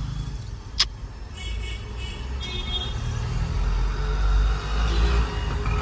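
Low rumble of road vehicles in street traffic, swelling about three to five seconds in as a vehicle passes close. A single sharp click sounds about a second in.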